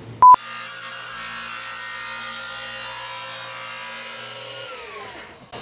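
A short, very loud electronic beep, then a power saw cutting a long board: the motor runs at a steady pitch for several seconds and winds down near the end.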